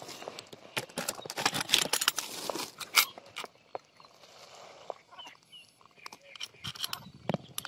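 Plastic bag rustling and crinkling with sharp clicks and knocks as hands dig through it, dense for the first three seconds or so, then quieter. More scattered clicks near the end as a small digital hanging scale is handled.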